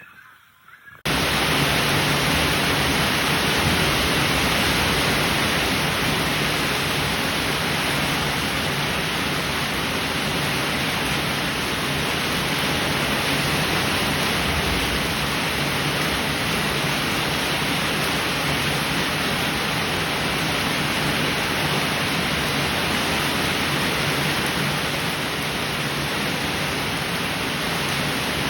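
Heavy rain falling as a steady, dense hiss, cutting in suddenly about a second in after a quieter stretch.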